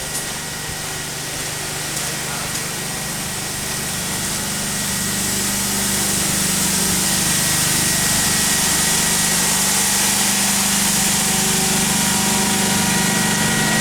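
MEMU electric train running, its hum growing louder over the first several seconds and then holding steady, with a steady high whine.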